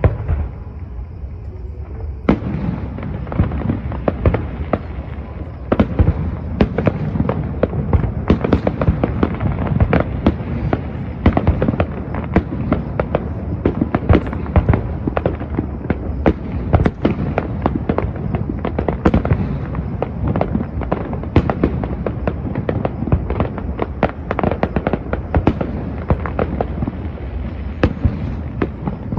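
Aerial fireworks going off in rapid succession: many sharp bangs and crackles over a continuous rumble. The barrage thickens about two seconds in and keeps up without a break.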